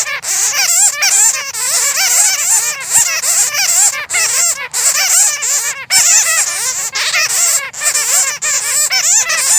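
A colony of bats squeaking and chittering: many overlapping high calls that wobble rapidly up and down in pitch, dense and continuous.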